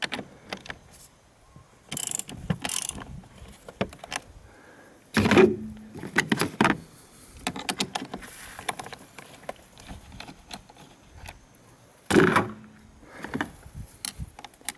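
Ratchet wrench clicking in three runs, loosening the nut of a car battery's positive terminal clamp, with scattered clicks and knocks of metal tools between them.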